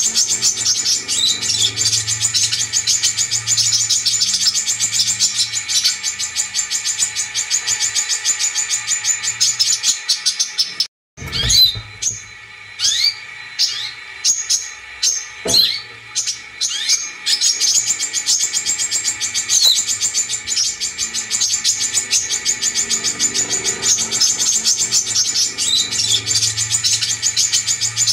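Brown-throated sunbird song used as a lure recording: a rapid, dense, high-pitched trill. About 11 seconds in it cuts out briefly and gives way to a few seconds of separate sharp chirps and short calls, then the continuous trill resumes.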